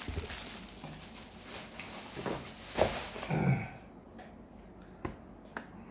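Rustling and crinkling of bubble wrap and plastic as a stack of hard plastic graded-card slabs is handled, with a short hum-like vocal sound about three seconds in. A few light clicks near the end as the plastic slabs are set down.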